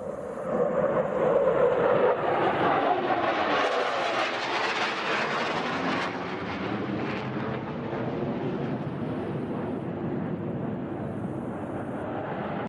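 Jet aircraft engine noise: a dense rushing whine with slowly gliding tones, loudest about two seconds in, then settling to a steadier rush.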